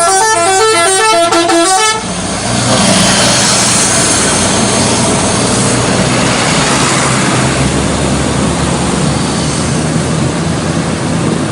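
Bus 'telolet' multi-tone horn playing a quick run of stepping notes, cutting off abruptly about two seconds in. A loud, steady rumble and rush of the bus's engine follows.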